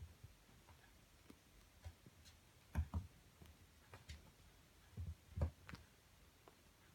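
Soft, irregular thumps and light taps from a calico kitten pouncing on and batting at a plush lion pillow's tail. The strongest come as a pair about three seconds in and a cluster around five seconds in.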